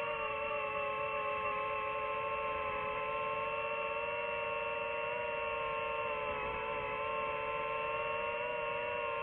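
DJI FPV quadcopter's motors and propellers whining steadily, a cluster of held tones that waver slightly in pitch together.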